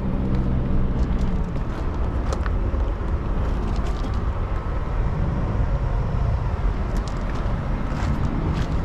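Car V8 engine idling with a low, steady rumble.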